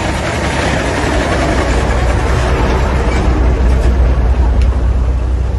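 A heavy vehicle's engine running close by: a deep, steady drone under a rush of road noise that grows louder over the first few seconds.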